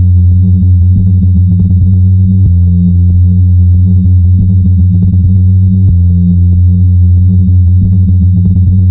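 Loud industrial electronic music: a heavy, low synthesizer drone with thin steady high tones above it, its low pattern repeating every couple of seconds.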